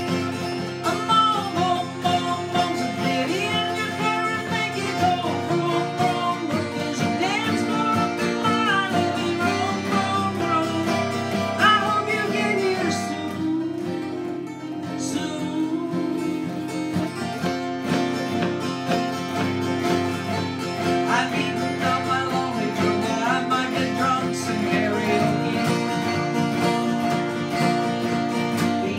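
Two acoustic guitars strummed together in a country song, with a voice singing the melody over them; the singing drops out for several seconds in the middle, leaving the guitars alone.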